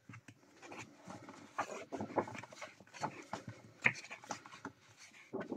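Paper pages of a colouring book rustling and flapping as they are turned by hand, with soft brushing of fingers over the paper in a string of short, irregular rustles.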